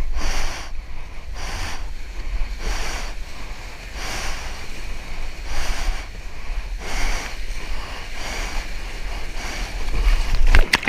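Arms paddling a surfboard through shallow whitewater: a watery swish about every second and a half, over a low rumble of wind and water on the action camera's microphone. A louder splash comes near the end.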